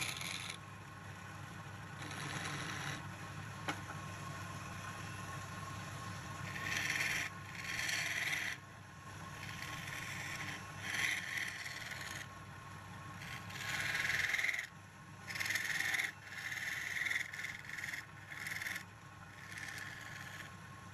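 Turning chisel scraping and cutting spinning wood on a lathe in a series of short and longer bursts, thickest in the middle of the stretch, over the steady low hum of the lathe's drive.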